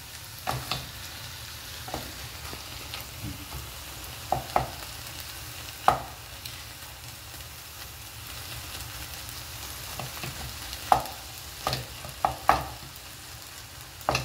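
Chicken and diced vegetables sizzling in a frying pan while a wooden spoon stirs them, with irregular knocks and scrapes of the spoon against the pan. The mixture is being cooked down to drive off its remaining liquid.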